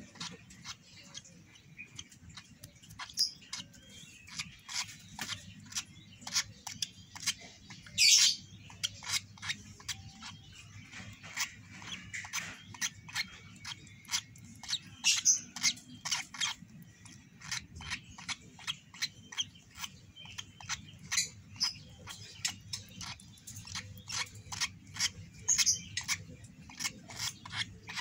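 Lovebird chick giving many short, quick begging chirps, two or three a second, some louder than others, as it is hand-fed porridge from a syringe: the eager begging of a hungry chick.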